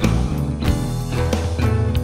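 Background music: guitar-led rock backing track with a steady beat.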